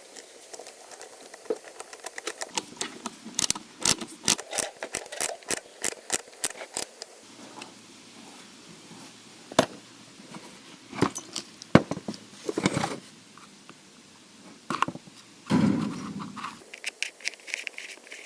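A brush scrubbing grime off the parts of a disassembled petrol trimmer engine: a run of quick scrubbing strokes for a few seconds, then scattered scrapes and knocks of parts being handled.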